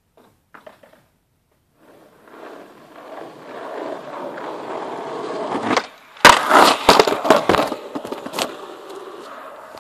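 Skateboard wheels rolling on rough asphalt, growing louder as the board comes closer. About six seconds in comes a clatter of sharp knocks and scraping as the skater skids the board, followed by quieter rolling that fades away.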